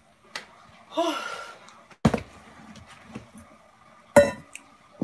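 A few hard knocks of a large plastic container being set down and handled on a stone countertop, the loudest near the end with a short ring. There is a brief vocal grunt about a second in.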